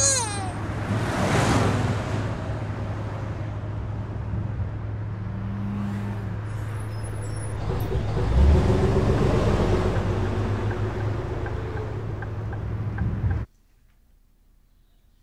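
Steady low rumble of a car driving, heard from inside the cabin, which cuts off abruptly near the end. A baby's crying trails off right at the start.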